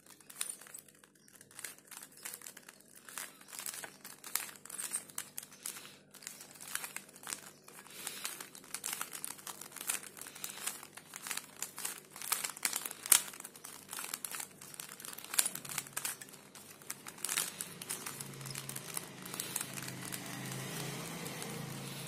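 A stickerless plastic 3x3 Rubik's Cube being scrambled by hand: its layers are twisted quickly over and over, giving a fast, irregular run of plastic clicks and rattles, with one sharper snap partway through.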